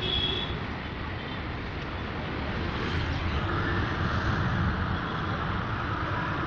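Steady rumble of motor vehicle noise, with a brighter hiss swelling about halfway through.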